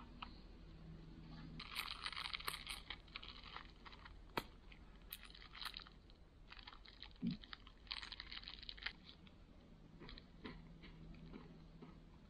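Faint, irregular crunching and crackling in short clusters, with a few sharp clicks and one soft low thud.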